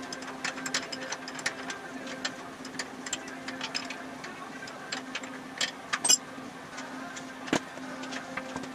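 Hand wrench working the nuts on a front axle's spindle: irregular small metal clicks and ticks with a few sharper clinks, over a steady low hum.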